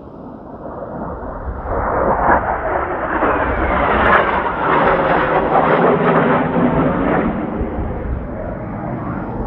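Kawasaki T-4 jet trainer noise as Blue Impulse aircraft pass over: a broad jet rush that swells over the first few seconds, peaks in the middle and slowly fades, with a faint falling whine.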